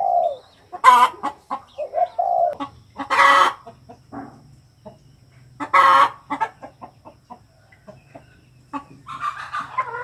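A caged spotted dove gives short low coos, mixed with louder, harsher calls from chickens: three loud squawks and a hoarse crow-like call near the end. Scattered light clicks come in between.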